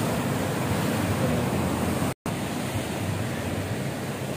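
Ocean surf washing onto a rocky reef shore: a steady, dense rush of waves. The sound cuts out completely for an instant about two seconds in.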